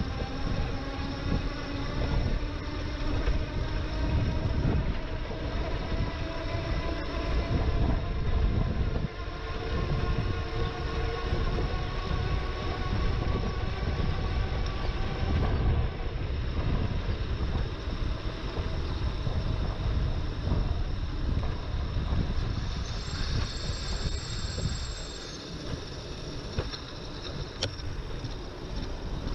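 Wind rushing over an action-camera microphone while riding an e-bike, a steady rumble, with a faint whine that drifts slowly in pitch over the first half.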